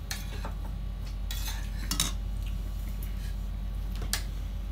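Metal spoon clinking against ceramic bowls and plates while eating: a few sharp clinks, the loudest about two seconds in and another about four seconds in.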